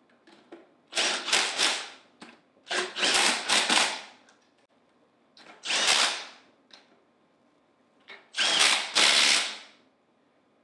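Cordless impact driver running in four bursts of about a second each, driving down the head bolts on a Hypro D50 diaphragm pump.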